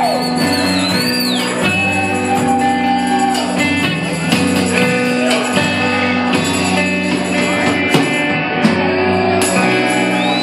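Live rock band playing loud, with electric guitar and drums and a tambourine over them. A falling guitar slide comes about a second and a half in.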